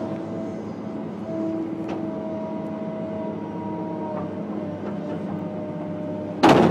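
Excavator engine and hydraulics running under load, heard from inside the cab, as the boom works a narrow trenching bucket in the ditch; several steady whining tones come and go as the controls are worked. A sudden loud noise near the end.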